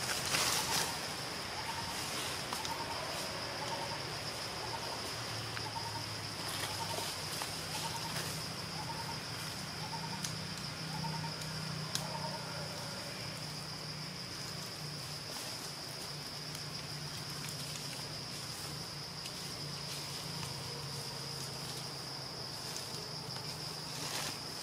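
Forest ambience dominated by a steady high-pitched insect drone. A short call repeats at about one to two a second during the first third, over a low steady hum.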